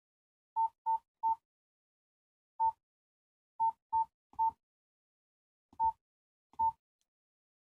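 Nokia Asha 210 keypad tones: nine short, identical beeps at one mid pitch, spaced unevenly, one per key press.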